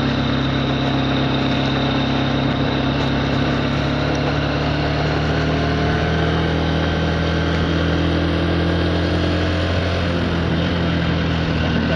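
Small petrol engine of a motorised bicycle running steadily at low cruising speed, its pitch drifting slightly, over a haze of road and wind noise picked up by a helmet-mounted lav mic.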